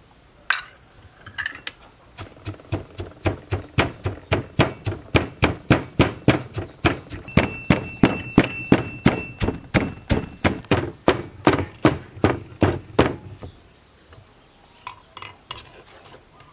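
Pestle pounding red chili and garlic in an earthenware mortar: a single knock, then a steady run of about three strikes a second that stops about 13 seconds in.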